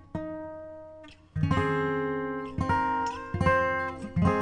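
Background music on acoustic guitar: a note rings out and fades, then strummed chords come in about a second and a half in.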